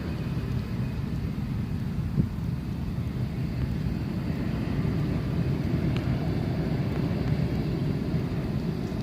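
Airbus A380 jet engines giving a low, steady rumble, with one brief click about two seconds in.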